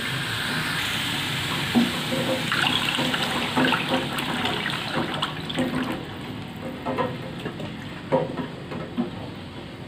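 Coconut milk being poured into a hot wok of frying spiced chicken livers and gizzards, then a spatula clacking and scraping against the wok as it is stirred in.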